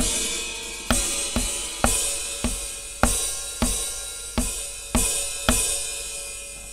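Open hi-hat sound from an Aroma TDX-25 electronic drum module, hit about ten times at uneven intervals, each hit a bright, sizzling wash that rings on. The last hit fades out. The sound's pitch setting is being turned between hits.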